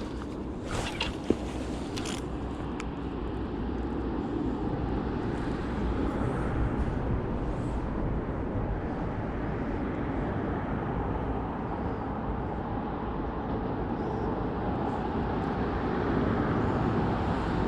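River water rushing steadily, swelling slightly, with a few light knocks in the first two seconds.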